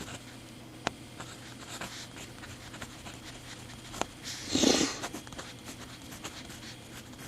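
Handling of a mechanical pencil with a few sharp, faint clicks, then a short loud sniff about four and a half seconds in.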